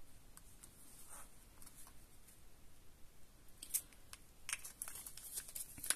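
Faint handling noises of small paper pieces and a liquid glue bottle: light clicks and rustles, with a cluster of sharper ticks in the last second and a half.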